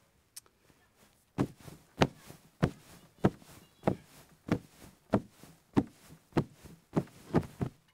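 Foley cushions pressed and thumped by hand in a steady rhythm to imitate a child jumping on a couch. About a dozen soft thumps come a little under two a second, starting about a second and a half in.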